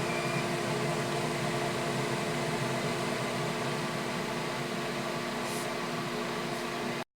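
Steady machine hum with a few constant tones over a noisy background, cut off abruptly about seven seconds in.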